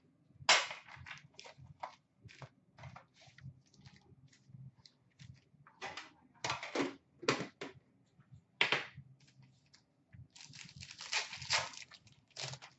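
Hockey card packs being handled: pulled from a metal Upper Deck tin and set down on a glass counter in a string of short clicks, knocks and rustles. Near the end there is a longer stretch of crinkling as a pack wrapper is torn open.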